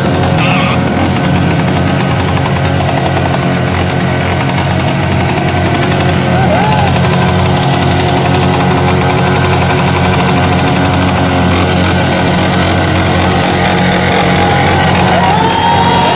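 Yamaha R15 V3 motorcycle engine running at a steady pace under heavy wind noise while riding.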